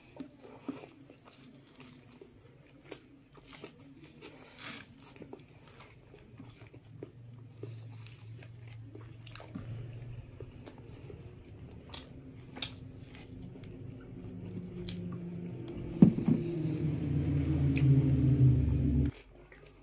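Close-up eating sounds of people eating rice and meat by hand: chewing, lip-smacking and many small mouth clicks. Over the last few seconds a low droning hum swells, louder than the eating, and cuts off suddenly.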